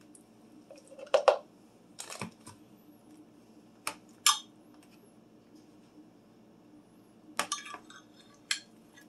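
A metal spoon clinking and scraping against a glass Pyrex measuring cup and mixing bowl while scooping sour cream, in several separate sharp knocks; the loudest come about a second in and about four seconds in.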